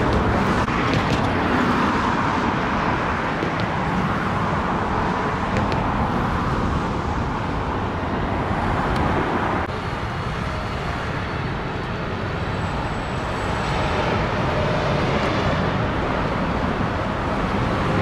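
Steady roadway traffic noise, a continuous rush of cars and tyres, which drops a little in level and changes colour about ten seconds in.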